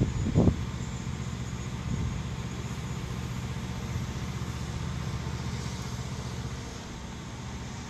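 A vehicle engine idling, a steady low hum, with a short louder sound about half a second in.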